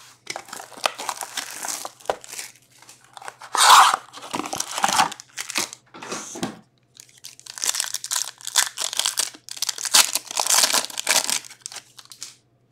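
A cardboard hobby box and its foil-wrapped hockey card packs being handled, in bursts of crinkling and rustling, with a pack wrapper being torn open.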